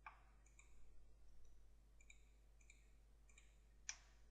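Faint, scattered clicks of a computer keyboard and mouse, several in all, the loudest one near the end.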